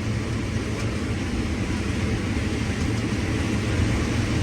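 New Holland combine running steadily while harvesting corn: a continuous engine and machinery drone with a low hum. The stalks being cut are mostly down on the ground, which makes them hard to cut.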